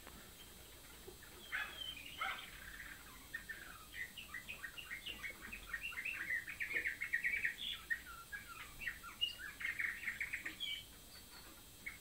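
Canary singing: a long song of quick chirps and trills that starts about a second and a half in and stops shortly before the end, with fast runs of repeated notes in the second half.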